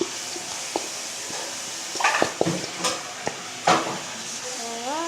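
Scrapes and knocks of a utensil against a bowl over a steady hiss, with a short rising whine-like sound near the end.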